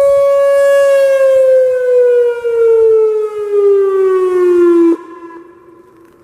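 Whelen WPS-2750 electronic outdoor warning siren ending its steady 'Alert' tone. It holds one pitch, then slides down in pitch for about four seconds and cuts off abruptly about five seconds in. Other sirens are heard faintly after it stops.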